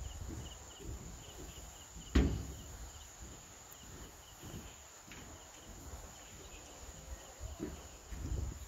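Footsteps on the chequered steel-plate deck of a suspension footbridge, repeated low thumps with one much louder knock about two seconds in. Insects chirp in short rapid pulses in the background.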